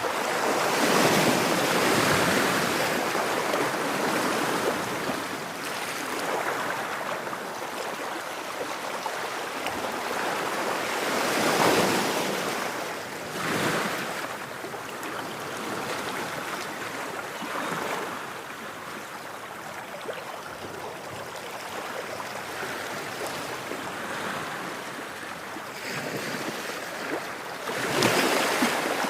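Ocean waves breaking and washing in, a steady rushing hiss that swells into louder surges as each wave comes in, about four times.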